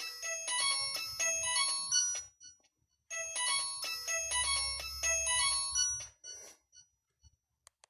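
Alcatel One Touch 1013D mobile phone playing one of its built-in ringtones through its speaker: a short, bright, chime-like melody that plays once, pauses briefly, and repeats.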